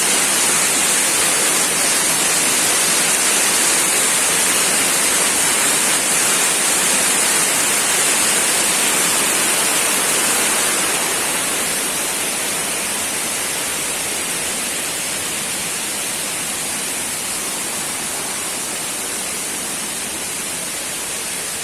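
Waterfall rushing: a steady, even noise of falling water. It drops a little in level about halfway through.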